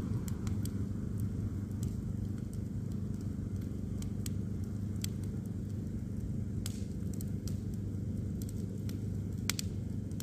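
Large bonfire of stacked branches burning, with irregular sharp crackles and pops over a steady low rumble. The loudest pop comes near the end.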